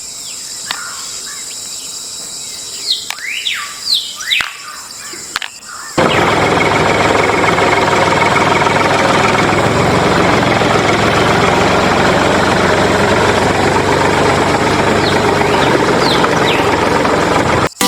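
Birds chirping over a steady high insect drone; about six seconds in a loud, steady rushing noise starts abruptly and runs on until it cuts off suddenly near the end.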